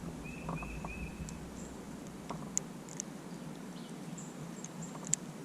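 Small clicks and taps of fishing pliers and tackle as a hooked fish is worked loose, with three short high chirps in the first second or so.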